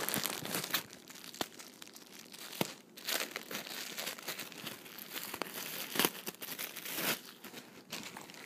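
Packaging crinkling and rustling in irregular bursts, with sharp crackles, as a squishy toy is worked out of it by hand.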